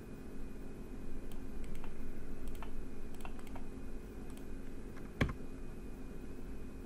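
Scattered light clicks of a computer mouse and keyboard while commands are copied and pasted, with one louder click about five seconds in, over a steady low hum.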